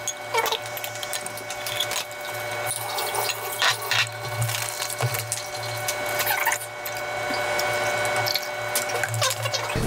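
Orange juice and champagne being poured from bottles into glass champagne flutes, with light clinks of glass and bottles over a steady low hum.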